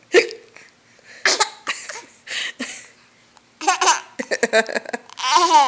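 A little girl hiccuping, with a few sharp, separate hiccups, then laughing in quick bursts from a little past halfway, with one longer laugh near the end.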